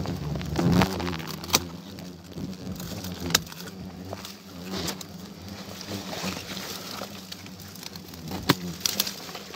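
Hornets buzzing close by near the start, then rustling of twigs and a few sharp snips of pruning shears, two of them close together near the end.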